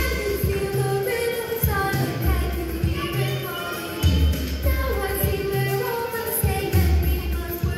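Recorded song with singing over a heavy bass line, played over the animatronic clock tower show's sound system.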